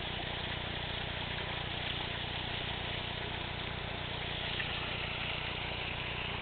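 A steady engine-like hum with an even hiss, unchanging throughout and without any distinct knocks or calls.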